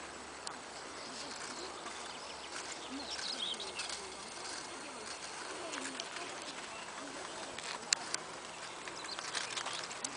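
Birds calling: a dove cooing in repeated low calls, with higher chirping of small birds. A couple of sharp clicks come about eight seconds in.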